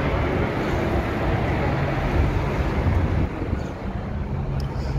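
Steady road and engine noise heard from inside a moving car, with wind rumbling on the microphone.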